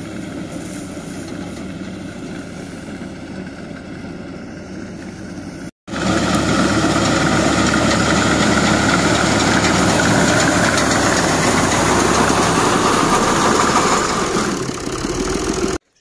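Tractor engine running steadily as it drives a front-mounted reaper through standing wheat. It is fainter at first, then after an abrupt cut about six seconds in it is much louder and close.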